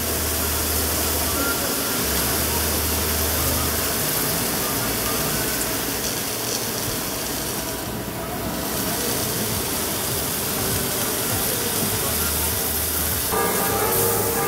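Sliced gyros meat sizzling on a hot flat-top griddle, a steady hiss. Music with bell-like tones comes back in about a second before the end.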